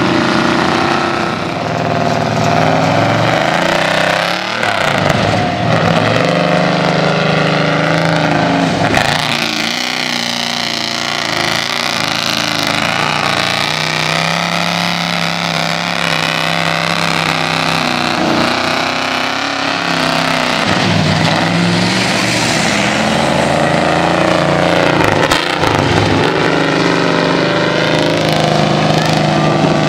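Lifted mud truck's engine revving hard, rising and falling in pitch again and again, as its big tires spin and churn through mud and water.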